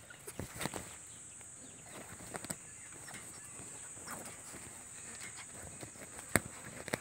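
Quiet scuffling, rustling and scattered small taps of a puppy pawing and nipping at a cloth trouser leg right by the microphone, with one sharper tap about six seconds in.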